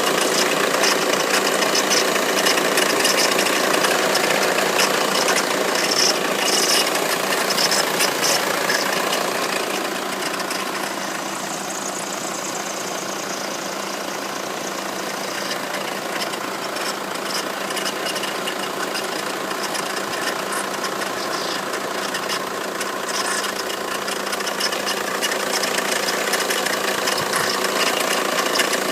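Renault Mégane Scénic 1 turbodiesel engine idling with a steady rattle and ticking from the accessory drive. The owner's mechanic suspects the water pump.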